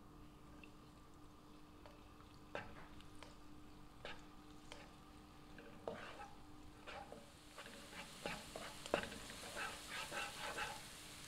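A spatula scraping and tapping minced garlic around a nonstick pan in a thin layer of oil, in short irregular strokes. From about seven seconds in, a faint sizzle builds with light crackling as the garlic starts to fry over low heat.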